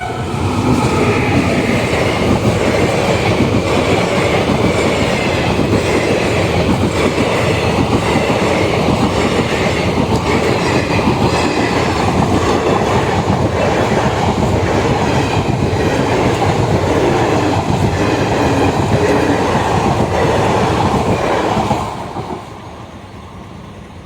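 A passenger train running past at speed: a steady, loud rumble with the wheels clattering over rail joints. It drops away sharply about 22 seconds in as the train clears.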